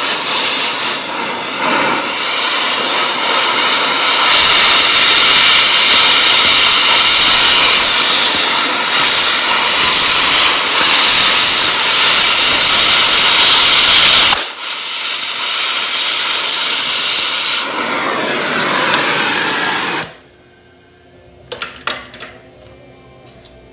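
Oxy-fuel cutting torch hissing loudly. About four seconds in the hiss grows louder as the cutting oxygen blows through a rusted steel bolt. It dips briefly and resumes, then cuts off suddenly near the end, leaving a few faint clicks.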